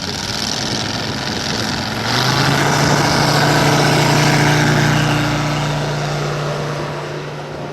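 The 400 cc radial engine of a giant RC Bücker Bü 133 Jungmeister model running. It gets louder and slightly higher-pitched about two seconds in, then gradually fades toward the end.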